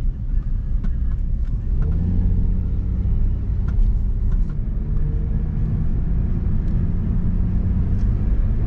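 Nissan 350Z's 3.5-litre V6 pulling at low speed under light throttle, heard from inside the cabin, with the induction noise of a 3D-printed open intake. The engine note rises about two seconds in, then holds fairly steady.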